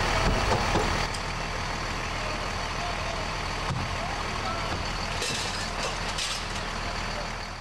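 Steady fireground noise dominated by a large vehicle engine running, as from fire apparatus at the scene, with a constant low hum. It fades out near the end.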